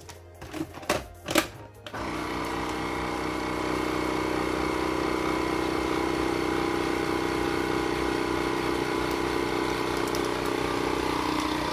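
A few sharp clicks as the countertop vacuum sealer's lid is latched shut over a bag, then the sealer's vacuum pump starts about two seconds in and runs with a steady hum, drawing the air out of the bag.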